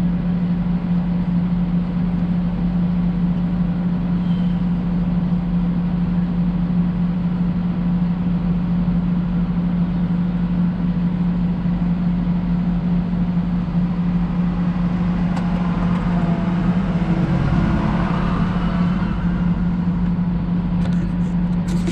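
Tractor engine running at a steady, unchanging speed, a constant drone with no revving, as when it drives a silage bagger through its PTO.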